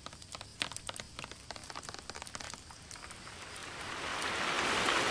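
Rain beginning to fall: scattered drops ticking at first, then building into a steady, swelling patter of rain that grows louder over the last couple of seconds.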